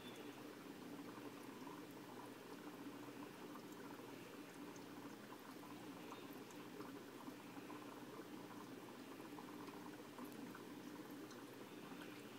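Faint, steady bubbling and trickling of aquarium water, with tiny scattered pops and a low steady hum underneath.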